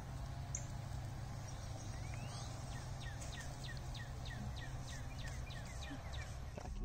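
Faint outdoor ambience with a steady low rumble; from about two seconds in, a bird calls a run of short, slightly falling notes, about three a second.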